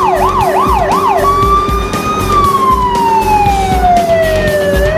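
Electronic fire-engine siren. It opens with a fast yelp sweeping up and down about three times a second, then switches to a slow wail that falls over a couple of seconds and starts to rise again near the end, with a steady lower tone beneath.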